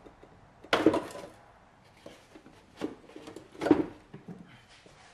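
Hard plastic air filter box being worked loose and lifted out of a car's engine bay: a few sharp knocks and clatters, the loudest about a second in and another near four seconds, with lighter clicks of the housing between.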